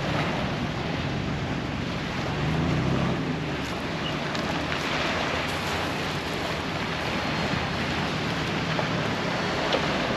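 Waves washing on the shore and wind buffeting the microphone, with a vehicle engine running low underneath for the first three seconds or so as it reverses a jet ski trailer.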